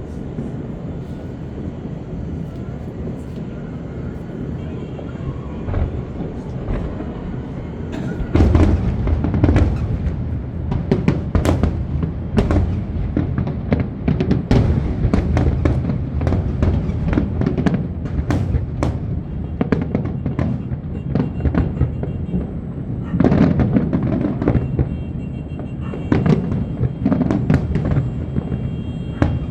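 Aerial fireworks bursting in quick succession, many sharp bangs over a low rumble. About eight seconds in they turn into a dense barrage, with music playing underneath.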